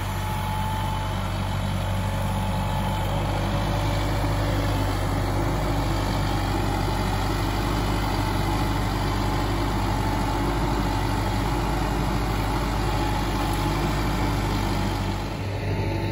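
Farm tractor's engine running steadily at low revs while its front loader moves a round hay bale, with a faint steady whine above the engine hum.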